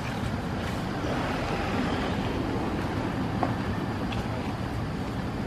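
Steady low rumbling background noise with no distinct calls or events, only a faint click or two.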